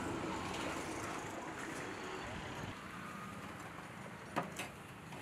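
Street traffic noise with a vehicle passing during the first couple of seconds and then fading. Near the end come two sharp clinks of steel utensils.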